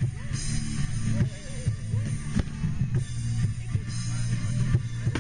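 Music with drums and a steady bass line, with no firework bangs standing out.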